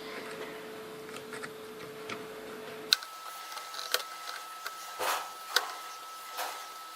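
Small clicks and light taps of hand work on a circuit board, with a faint steady electrical whine that jumps to a higher pitch about three seconds in.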